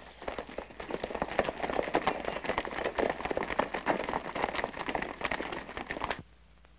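Hoofbeats of a group of horses galloping on a dirt track, a dense rapid clatter that cuts off suddenly near the end.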